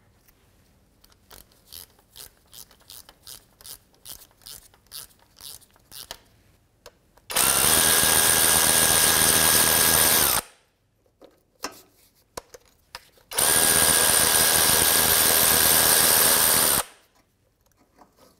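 Power ratchet running in two loud, steady runs of about three seconds each, spinning out the fasteners of an engine torque strut mount. Before them comes a string of light ratchet clicks, about two a second.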